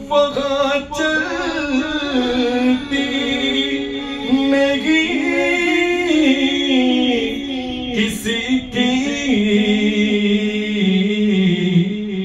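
A man singing a naat (Islamic devotional song) into a handheld microphone, long drawn-out melodic lines with no clear words, over a steady low drone.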